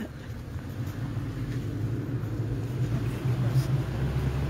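A motor vehicle's engine running close by: a low, steady rumble that grows slightly louder.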